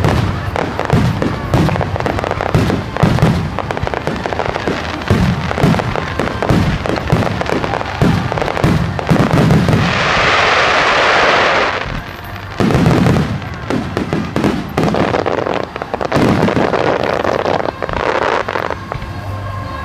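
Starmine fireworks barrage: aerial shells bursting in quick succession, a rapid run of bangs and booms. About halfway through, a dense hissing burst lasts roughly two seconds.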